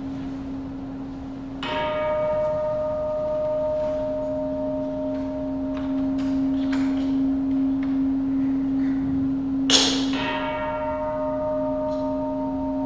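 A Buddhist bowl bell struck twice, about eight seconds apart, the second strike louder. Each strike rings on with several long, steady tones over a low hum that is already sounding.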